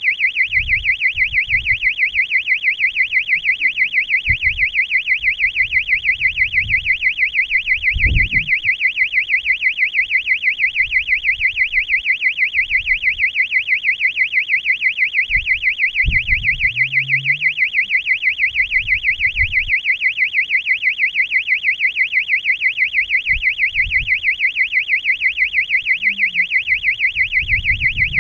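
High-altitude balloon payload's electronic locator alarm sounding: a loud, high warbling tone that rises and falls several times a second without a break. Faint low knocks come and go underneath.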